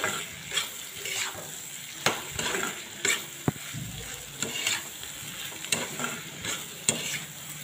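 Fish belly pieces with capsicum and onion stir-frying in a kadai: a steady sizzle under repeated scraping strokes of the spatula against the pan, with one sharp clack about halfway through.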